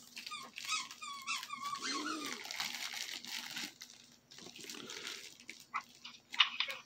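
A dog whining: a run of high, wavering whimpers about a second in and a lower whine just after, with scattered rustling of gift wrap.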